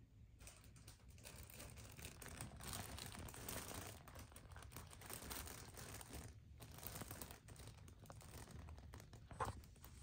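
Faint crinkling and rustling of a fabric play tunnel as kittens play in it, with a short lull partway through and one sharp tap about nine seconds in.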